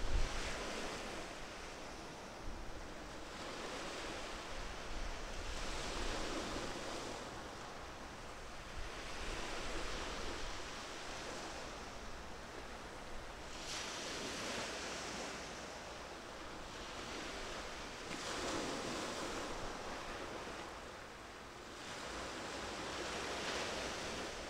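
Small sea waves washing in, a rushing hiss that swells and fades every three to five seconds.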